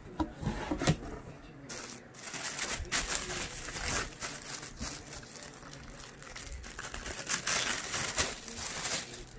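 Tissue paper and plastic packaging crinkling and rustling in irregular bursts as clothes are handled and lifted out of a box.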